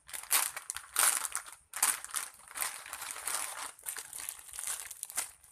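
Soft foam squishy toy being squeezed over and over, each squeeze a short noisy rustle, several in a row with brief pauses between.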